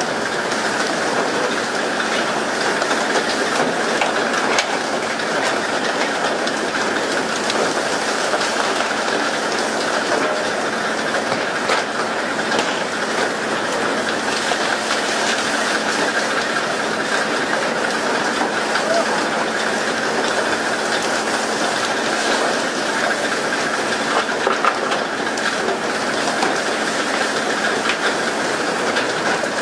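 Steady hiss and splash of water spray along the hull of a skipjack pole-and-line fishing boat, with the boat's engine running underneath and scattered small knocks.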